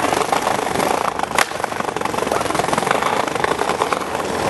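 Skateboard wheels rolling over pavement with a steady rushing noise, and one sharp click about a second and a half in.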